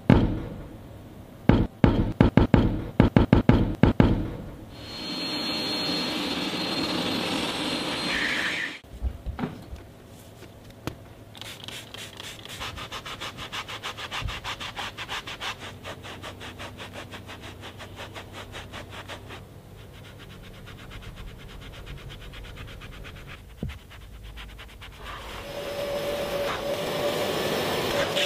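Cloth car seat being cleaned. A rapid run of sharp strokes comes first, then a powered scrubbing pad rubs the upholstery in an even fast rhythm. Near the end an upholstery extractor's suction builds into a steady hum.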